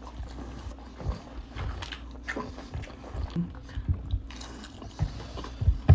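A person chewing food close to the microphone, with irregular wet mouth smacks and clicks.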